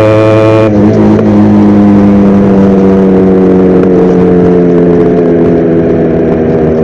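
Yamaha RX100's two-stroke single-cylinder engine running under way on the motorcycle, loud and steady. Its note drops sharply about a second in, with a brief rough moment, then holds at the lower pitch.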